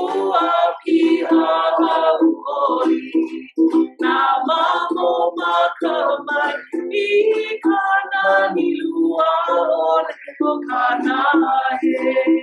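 A small group of voices, men and women, singing a song together in unison to a ukulele strummed in a steady rhythm.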